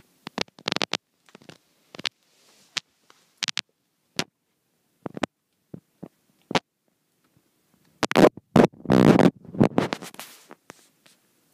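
Snow sliding down the plastic film of a hoop-house cold tunnel, heard from inside: scattered light ticks and taps, then about eight seconds in a loud rushing slide lasting a second or two.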